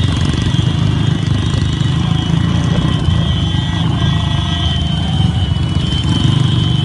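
Many motorcycle engines running together as a crowd of riders moves along a road, under a heavy, uneven low rumble on the microphone.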